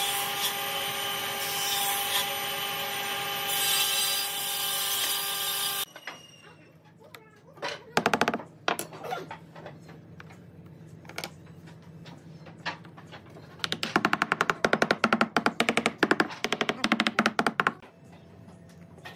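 A steady motor hum with a high whine cuts off abruptly about six seconds in. After it come small knocks and clicks of wooden and tile pieces being set by hand into glue in a wooden frame, with a few seconds of rapid clicking and rattling near the end.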